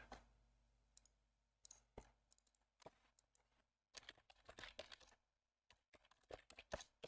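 Faint clicks of a computer mouse and keyboard: scattered single clicks, with quick runs of keystrokes about four seconds in and again near the end.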